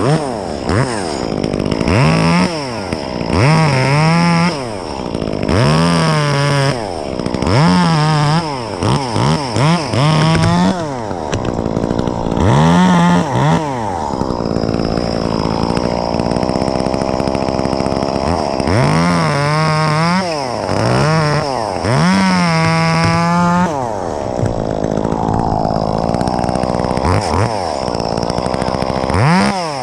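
Gas chainsaw revved to full throttle about a dozen times in short bursts, each dropping back to idle. There are longer spells of idling between the groups of bursts.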